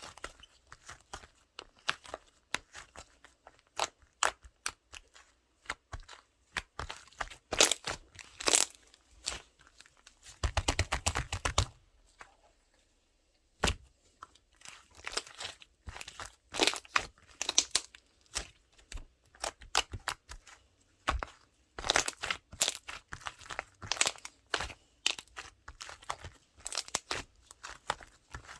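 Slime being handled: squished, stretched and pressed, giving many short crackling clicks and pops. There is a dense run of crackles about ten seconds in and a brief pause about twelve seconds in.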